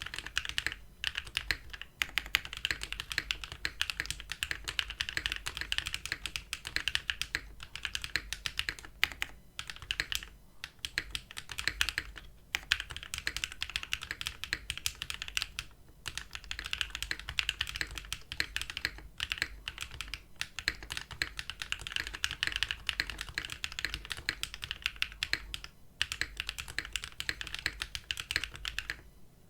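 Mode SixtyFive custom mechanical keyboard being typed on steadily, with a few brief pauses. It has factory-lubed Bolsa Supply Laguna Blue linear switches on a POM half plate, under GMK doubleshot ABS keycaps, and its stabilizers are lubed. The typing stops just before the end.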